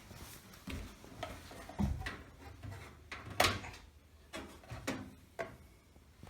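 Light knocks, clicks and clatter of computer hardware being handled in and around a PC case, with the sharpest knock about three and a half seconds in.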